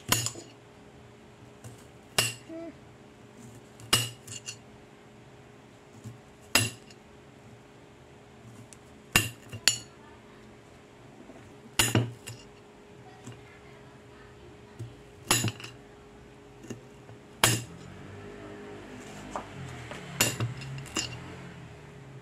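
Small kitchen knife slicing bitter gourd (ampalaya), the blade clicking sharply against the cutting board as each slice comes through, about once every two to three seconds and sometimes twice in quick succession.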